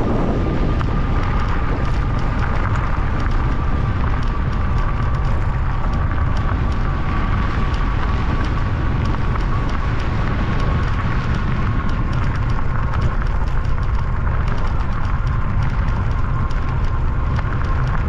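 Electric bike riding on gravel: wind rumbling on the microphone over a constant crackle of tyres on loose gravel, with a thin steady whine from the rear hub motor that sinks slightly in pitch.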